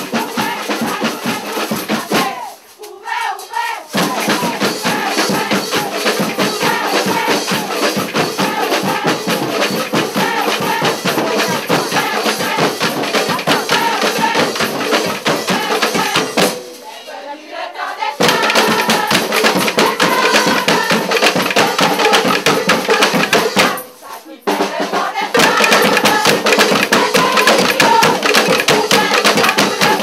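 Carnival street band: a crowd singing together over fast drums and other hand percussion. The sound dips briefly three times, about 3, 17 and 24 seconds in.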